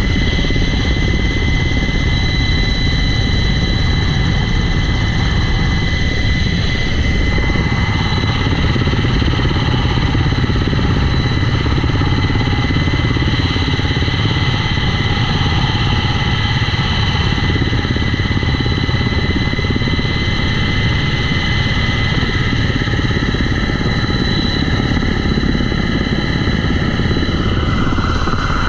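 UH-60 Black Hawk helicopter in flight, heard up close at the fuselage: a loud, steady rumble of the rotor and turbine engines with a constant high-pitched whine over it.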